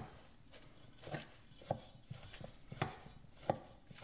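Metal spoon stirring damp potting soil in a stainless steel mixing bowl, knocking and scraping against the bowl. The knocks are short, sharp and irregular, about one a second.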